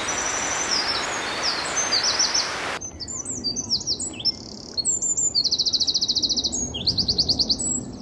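Eurasian wren singing: rapid strings of high notes and fast trills, with two long rattling trills near the end. A steady rushing noise sits under the song for the first three seconds and cuts off abruptly.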